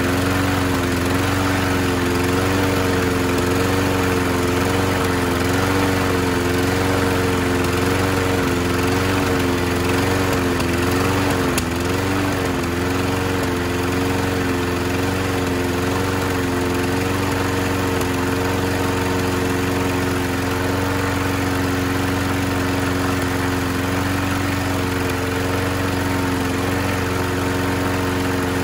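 Tecumseh 6.5 HP OHV single-cylinder mower engine running fast. Its speed wavers up and down for the first dozen seconds or so, then settles steady and slightly lower as the carburetor linkage is adjusted.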